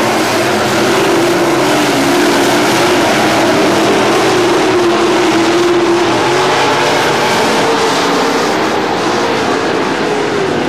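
A field of dirt late model race cars' V8 engines running hard around the dirt oval, a loud, steady engine drone whose pitch wavers up and down as the cars go through the turns.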